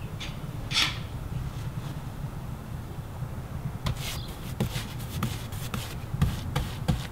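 A hand rubbing across rough, weathered composite shake siding: a single rustle near the start, then from about four seconds in a run of short scratchy scrapes, over a low steady rumble.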